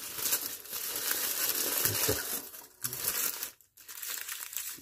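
Wax paper crinkling and rustling as it is unwrapped from a straight razor, in stretches with a couple of brief pauses.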